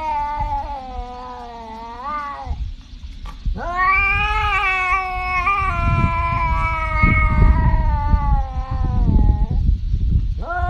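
Tabby cat yowling in long drawn-out calls: one trailing off about two seconds in, a long one of about six seconds starting midway, and another beginning near the end. A low rumble sits under the long call.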